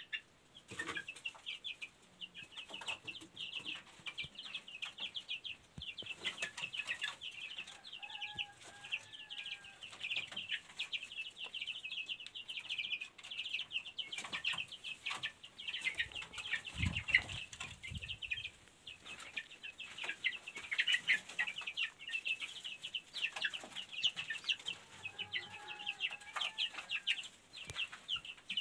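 A group of young chicks peeping constantly in quick, high chirps, with two short lower calls from another bird about a third of the way in and near the end. A brief low thud comes about halfway through.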